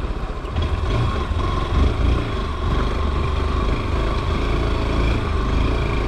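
Honda XR190's single-cylinder four-stroke engine running as the motorcycle is ridden along a rough off-road track, under a heavy, uneven low rumble.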